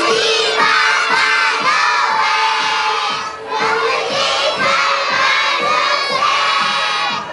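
A large group of young children shouting and chanting together in high voices. They break off briefly a little over three seconds in, then start the next phrase.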